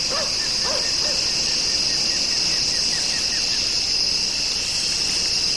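Crickets chirping in a steady, continuous chorus, with a faint run of quick repeated chirps over about two seconds in the middle.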